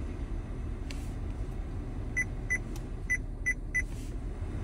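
Touch-confirmation beeps as the climate-control buttons on an aftermarket Android touchscreen head unit are tapped. There are five short, high beeps, two and then three, each about a third of a second apart.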